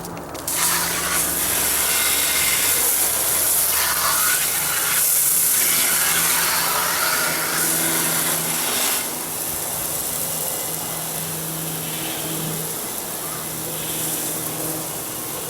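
Water spraying from a garden hose onto a CRT television's cabinet and chassis: a steady hiss that starts about half a second in and eases a little about nine seconds in, with a low steady hum underneath.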